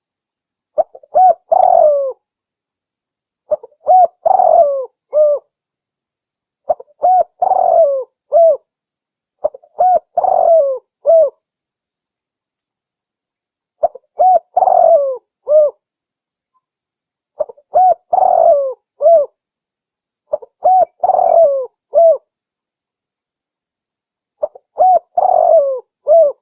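Spotted dove (cikukur) cooing: eight phrases of several short, low coo notes, one phrase every three seconds or so, with a longer pause around the middle.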